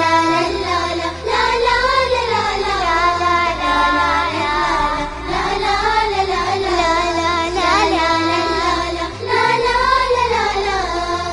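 Children singing a song in Arabic in unison over a musical backing with a steady bass line.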